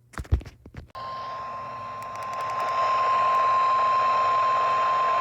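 A few short pops, then about a second in a steady single-tone alarm near 1 kHz starts over a hiss of radio static: the NOAA Weather Radio 1050 Hz warning alarm tone that comes before an emergency alert message.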